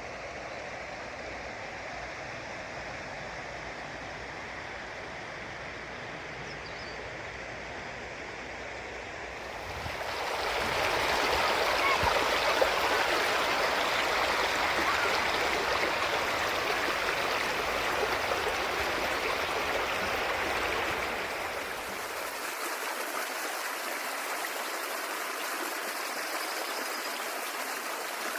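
Stream water running steadily over stones. It grows louder and fuller about ten seconds in, then softens again about three quarters of the way through.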